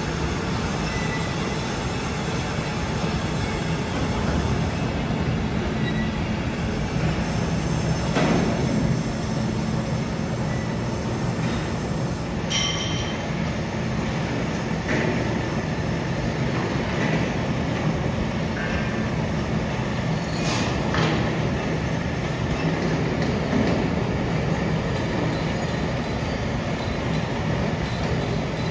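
Steady machine-shop noise from running machine tools: a continuous low hum with a broad rush over it, broken by a few sharp knocks, the loudest about twelve seconds in.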